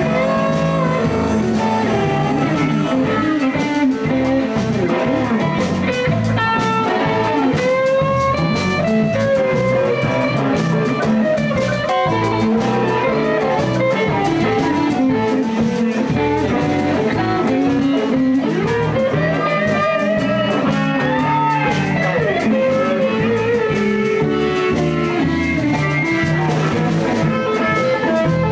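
Live blues band playing an instrumental passage: a lead line with bent notes over steady bass and drums.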